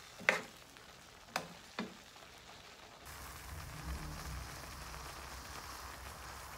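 A metal spatula knocks three times against a metal pan while stirring thick beef stew, the first knock the loudest. About three seconds in, a steady sizzling hiss of the stew simmering begins, with a low hum under it.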